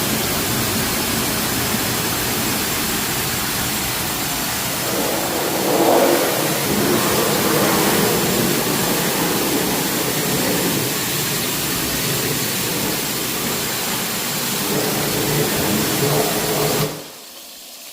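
High-pressure washer running and spraying water: a steady hiss with a motor sound under it, swelling a little a few seconds in, then cutting off suddenly near the end.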